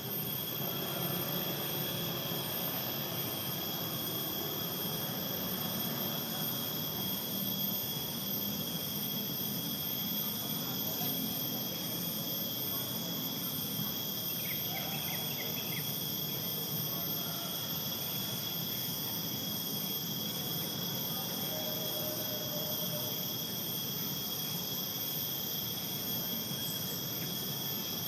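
Forest-edge ambience of insects trilling steadily at several high pitches, one of them pulsing about one and a half times a second, over a low rumble. A few short chirps come about halfway through.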